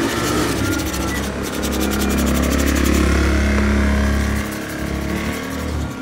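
A motor or engine running with a steady low hum, louder for about three seconds in the middle before easing off.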